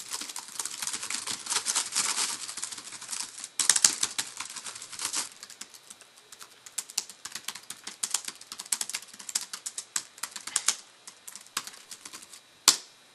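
Laptop keyboard keys being typed on fast, a dense clatter of keystrokes for the first five seconds. It thins to scattered single key taps, then one sharp key strike near the end.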